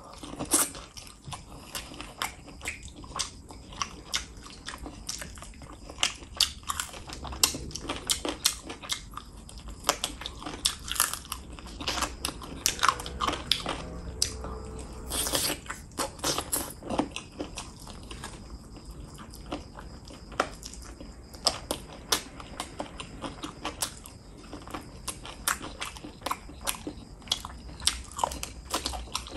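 Close-up mouth sounds of a person chewing and biting into cooked chicken drumstick meat: wet, irregular smacks and clicks, several a second.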